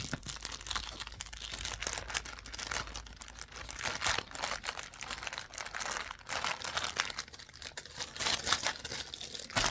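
Packaging crinkling and rustling in a stream of quick crackles as items are handled and unpacked from a box.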